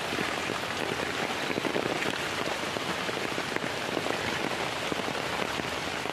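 Heavy rain falling steadily, a dense patter of drops on leaves and flooded ground.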